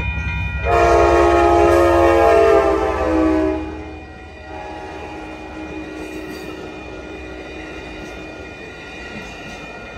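Amtrak F59PHI diesel locomotive's horn sounds one long blast of about three seconds, over the rumble of its diesel engine. The chord drops slightly in pitch as the locomotive passes. Then the bi-level passenger cars roll by with a steady rush of wheels on rail.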